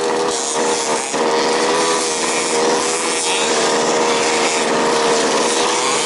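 Small two-stroke petrol engines of 1/5-scale radio-controlled off-road buggies buzzing at high revs as several cars race, one steady high drone with others wavering around it.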